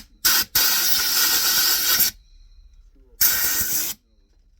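Compressed air hissing as threads are blown clean: a short burst, a long blast of about a second and a half, then after a pause a shorter blast near the end.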